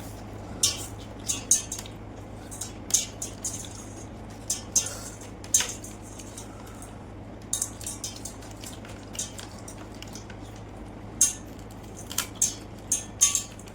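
Close-up eating sounds: irregular crisp crunches, clicks and wet mouth sounds of someone chewing fried fish and water rice, with small clinks against a plate, over a steady low hum.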